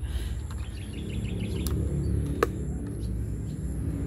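Metal scissor tip working in the slot of a plastic clock battery cover, with one sharp click about halfway through. Behind it are a steady low rumble and a run of faint bird chirps early on.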